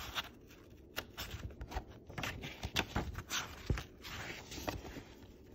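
Paper pages of a paperback picture book being turned by hand: a series of irregular paper rustles and flips.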